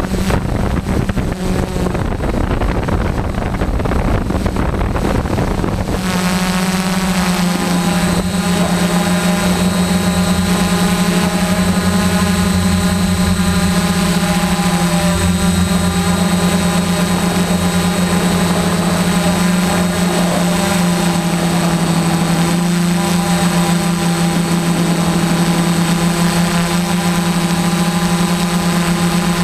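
Motors and propellers of a DJI F450 quadcopter in flight, heard from the onboard camera. The first few seconds are mixed with a rough rush of wind; about six seconds in it settles into a steady hum of even pitch.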